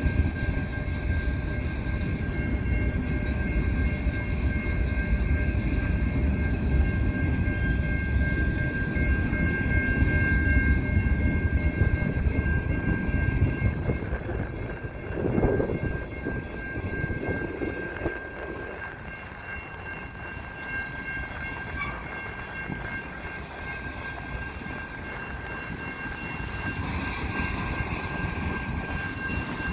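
Freight train cars rolling slowly past: a low rumble of wheels on rail with steady high tones over it. The rumble eases after about halfway, with a short swell in the middle.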